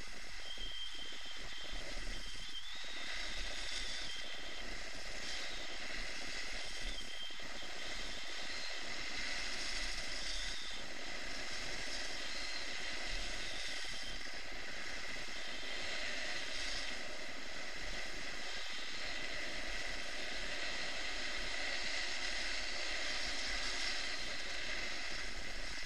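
Steady hiss of skis sliding over groomed snow during a descent, mixed with wind rushing past the microphone of a moving action camera.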